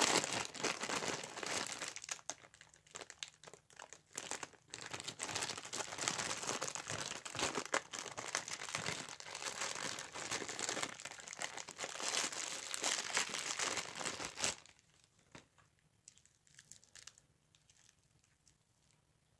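Clear plastic bag crinkling in irregular handfuls as a wristwatch is unwrapped from it. The crinkling stops about three-quarters of the way through, leaving near silence with a few faint ticks.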